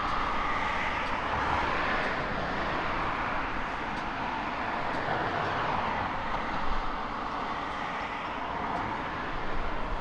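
Steady outdoor ambient noise: an even hiss with no distinct events or tones, broken only by a few faint ticks.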